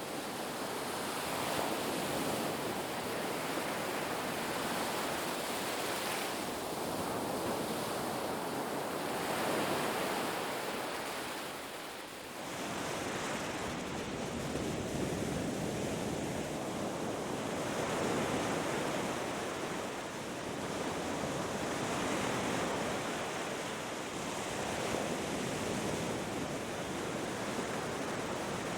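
Ocean waves breaking and washing up a beach, a steady surf rush that swells and eases every few seconds.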